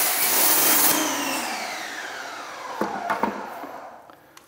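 Active 2.0 electric pressure washer spraying with a loud hiss, then its motor shuts off and winds down in a falling whine over about two seconds. Two or three light knocks follow about three seconds in.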